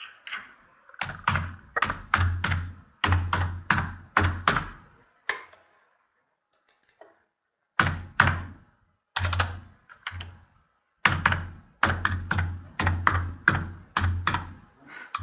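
Typing on a computer keyboard: runs of quick keystrokes, each with a low thud, broken by a pause of about two seconds near the middle.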